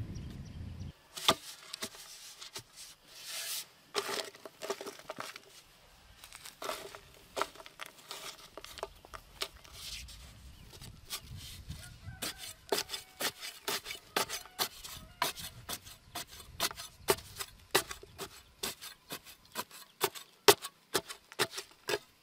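A metal hand trowel striking and scraping dry, stony soil at the foot of a bamboo stake: a string of sharp chopping strikes with some scraping, sparse at first and coming about twice a second in the second half.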